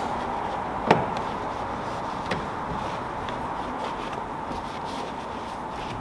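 Microfiber towel rubbing and wiping a soapy plastic car door panel, over steady background noise, with a sharp knock about a second in.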